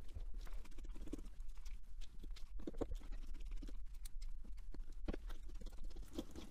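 Precision screwdriver working the screws out of a small metal optics block, with irregular light clicks and taps as the metal parts are turned and set down, over a steady low hum.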